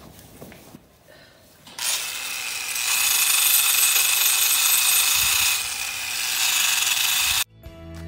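Power tool with a Hoofboss rotary trimming disc grinding down a goat's hoof: a high whine over a rasping grind. It starts about two seconds in, grows louder a second later and cuts off abruptly near the end, where music begins.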